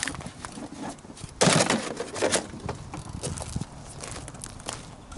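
Handling noises: scattered clicks and knocks, with a louder crinkling, rustling burst about a second and a half in.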